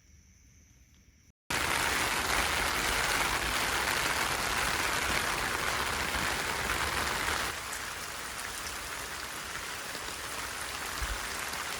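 Heavy rain pouring down, a dense steady hiss that begins abruptly about a second and a half in and eases slightly a few seconds before the end.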